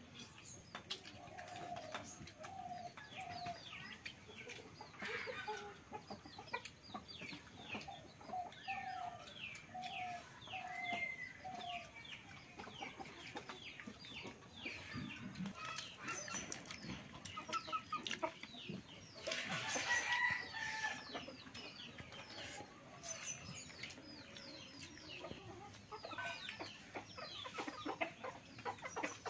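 Chickens clucking: runs of short repeated clucks in the first twelve seconds amid many quick high chirps, with one louder call about twenty seconds in.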